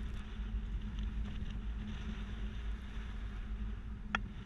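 2020 Chevrolet Equinox driving slowly through a slalom, heard from a camera on its rear hitch bike rack: a steady low rumble of engine and tyres with wind on the microphone. A single sharp click sounds about four seconds in.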